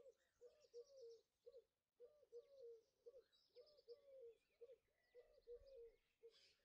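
Faint outdoor birdsong ambience: a pigeon cooing in repeated phrases, with small birds chirping and trilling higher up.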